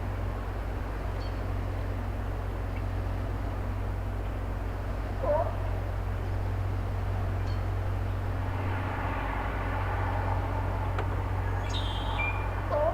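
Excavator engine running with a steady low drone, with a few short bird calls about five seconds in and again near the end. A higher, multi-toned sound swells in from about two-thirds of the way through.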